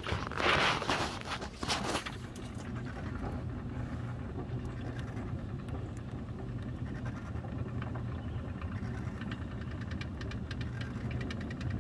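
Small riding-scale locomotive's engine running steadily as it pulls along the track, a low even drone. A few louder rushing bursts come in the first two seconds, and light rhythmic clicking builds near the end.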